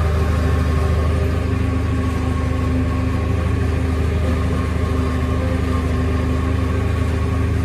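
Tractor engine running steadily, turning the PTO shaft at 540 rpm to drive a maize chopper as it chops maize. An even, unbroken drone of engine and machinery.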